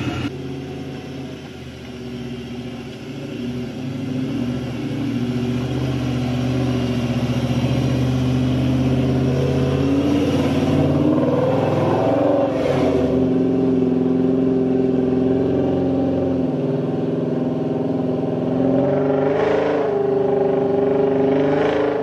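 4x4 off-road vehicle's engine running steadily as it drives, growing louder over the first few seconds. About halfway through the engine note wavers up and down as the revs change.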